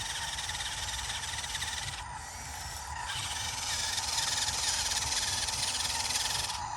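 Excavator working: its engine runs with a low rumble under a high, rasping hiss. The hiss drops out for about a second two seconds in, then comes back louder.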